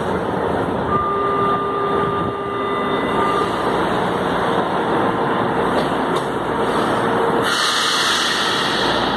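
São Paulo Metro trains at the platform: steady running and traction noise, with a steady whine from about a second in to a little past three seconds. A hiss comes in near the end.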